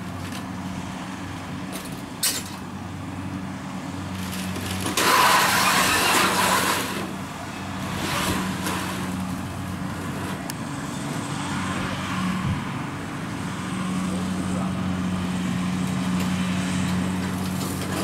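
Kubota DC-70 combine harvester's diesel engine running steadily, with a loud rushing noise of about two seconds near the middle and a brief click early in.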